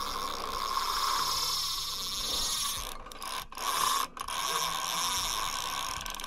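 Carp fishing reel's drag clicking rapidly as a hooked carp pulls line off against it, breaking off briefly a few times about three to four seconds in.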